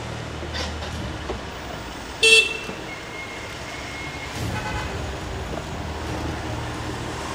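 A Mercedes SUV idling with a steady low hum. About two seconds in there is one short, sharp horn toot, the loudest sound.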